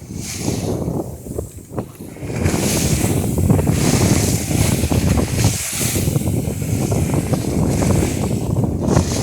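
Wind buffeting the microphone over water rushing and slapping along the hull of a sailing dory beating upwind through chop. It gets louder about two and a half seconds in and stays up.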